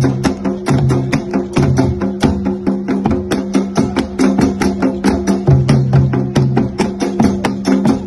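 Ijexá rhythm played by a percussion ensemble: hand-struck atabaque drums ringing under a steady, fast stream of sharp agogô bell and drum strokes.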